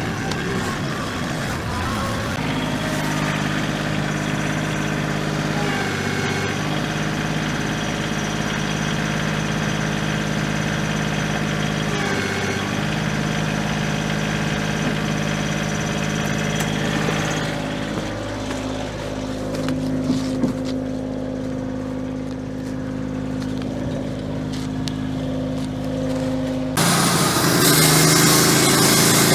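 An engine running steadily at constant speed, its sound changing abruptly several times and turning suddenly louder and fuller near the end.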